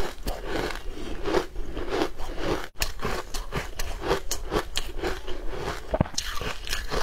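Close-up chewing of a crumbly green food, a dense run of small crunches and crackles with a brief cut-out a little under three seconds in.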